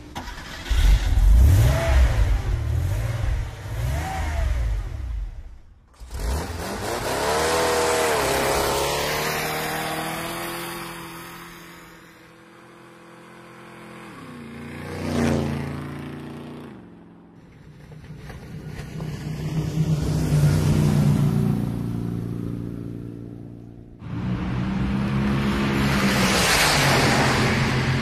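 Motor vehicles driving past one after another, the engine sound swelling and fading several times. Near the middle one passes close with a sharp rise in loudness and a drop in pitch.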